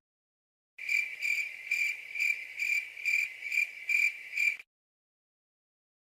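Cricket chirping sound effect: a high, steady chirping that pulses about twice a second, starting about a second in and cutting off abruptly after nearly four seconds.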